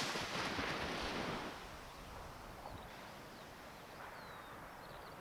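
Wind and surf noise on an open beach: a loud rush through the first second and a half, then a quieter steady hiss, with a few faint bird chirps.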